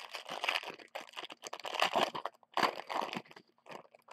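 Foil wrapper of a Panini Prizm basketball hanger pack being torn open and crinkled by hand, in uneven bursts of crackling rustles.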